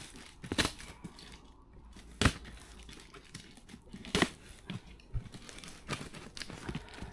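A blunt knife stabbing at and cutting open a taped cardboard box: several sharp stabs a second or two apart, with tearing and crinkling of cardboard and packing tape between.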